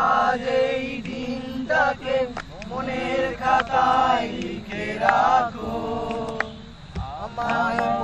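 Several men's voices singing a song together without instruments, in long held, wavering notes phrase after phrase, with a short break in the singing near the end.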